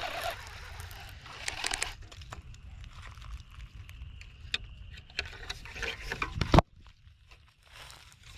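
Baitcasting reel being wound in with a steady whirring whine that stops a moment in, followed by scattered clicks and rustles of the rod and reel being handled, and one loud thump about six and a half seconds in.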